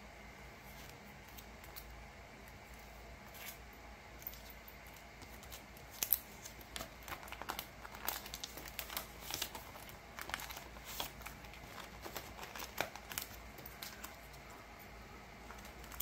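Plastic binder sleeves and photocards being handled: small crinkles, rustles and light taps, sparse at first and coming thick and fast from about six seconds in.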